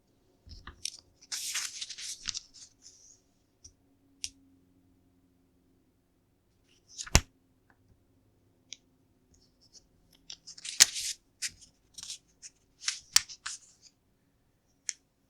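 LEGO plastic pieces being handled and pressed together: scattered rustling and crackling with sharp plastic clicks, the loudest about seven, eleven and thirteen seconds in.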